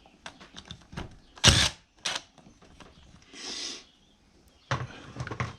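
Metal hand tools clicking and knocking on a motorcycle engine as a 21 mm nut is worked off. There is a sharp knock about a second and a half in, another half a second later, a short scraping hiss past the middle, and a quick run of knocks near the end.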